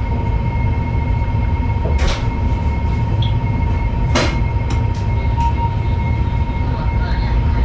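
Cabin sound of a CRH380B high-speed train: a steady low rumble with a thin, steady high tone, and two short sharp clicks about two seconds apart.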